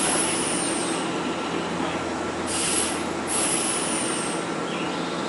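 Nankai limited-express electric train standing at the platform: a steady hum from its onboard equipment, with short hisses of released air, the strongest about two and a half seconds in.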